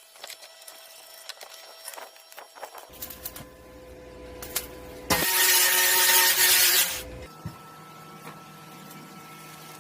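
Electric welding arc crackling for about two seconds, from about five seconds in, tack-welding a steel nut onto a gas cylinder. Before it, light metal clicks and handling, then a low steady hum that carries on at a lower level after the weld.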